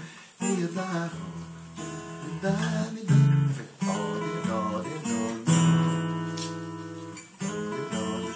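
Acoustic guitar playing a melody line over chords, with separate plucked notes and chords ringing out, about eight attacks.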